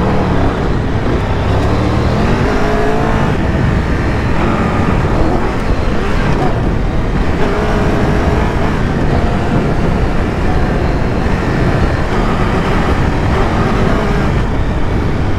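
Triumph Tiger 1200 Rally's three-cylinder engine under hard riding, its revs rising and falling several times, over loud wind noise and road rumble.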